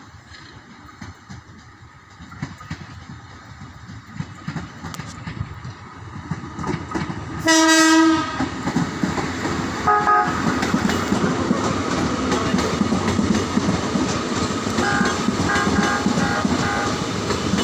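A Tokyu 8500-series electric commuter train approaches and passes, its wheels and running gear growing louder with clickety-clack on the rails. About halfway through its horn gives one loud blast, then a shorter toot a couple of seconds later. Near the end comes a quick run of about five short toots.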